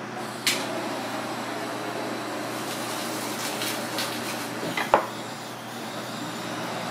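Wet handling sounds of a monkfish's liver being pulled from the body cavity by hand, over a steady kitchen hum. A few light clicks, and a sharp knock about five seconds in.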